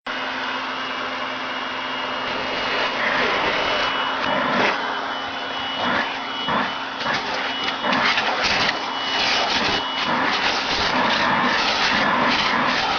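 Household vacuum cleaner running, its suction being run over a cat's fur. A steady hum with a thin high whine, turning uneven and rustling from about three seconds in as the nozzle presses and drags.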